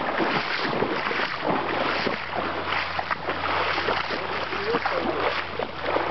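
Shallow creek water rushing and rippling over a stony riffle, a steady splashy burble. A low steady hum comes in about a second and a half in.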